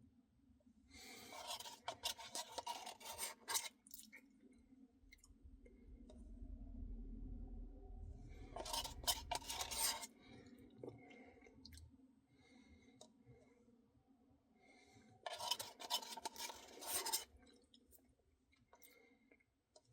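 Close-miked eating of a Reese's Pieces cookie dough Blizzard: a spoon scraping and scooping the thick ice cream, in three crackly bursts a few seconds apart, with faint ticks in between.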